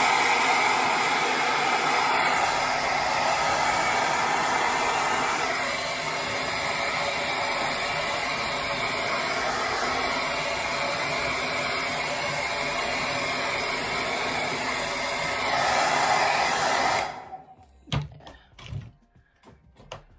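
Handheld hair dryer blowing steadily while drying long, wet hair. Its sound drops a little after about five seconds, rises again near the end, then cuts off suddenly, followed by a few short knocks.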